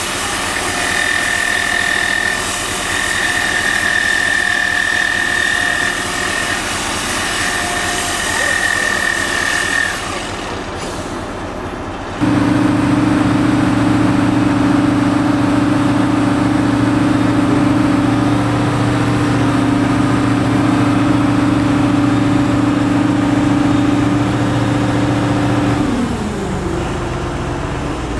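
Mobile crane's engine running at raised revs to drive the boom and hoist, a steady low hum that falls in pitch near the end as the revs drop. For the first ten seconds or so there is a steady high whine over a hiss instead.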